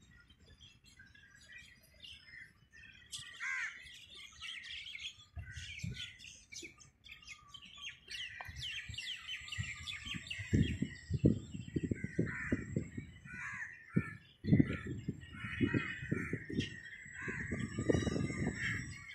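Many birds chirping and twittering in short, downward-sweeping calls. From about five seconds in, irregular bursts of low rumble come and go and are louder than the birds.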